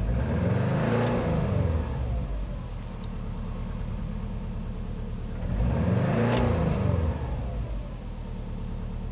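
Car engine heard from inside the cabin, idling and revved up and back down twice, a few seconds apart.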